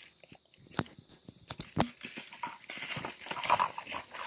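Kraft paper mailer envelope being handled and pulled open by hand: crinkling and rustling with scattered sharp crackles, the rustling growing denser in the second half.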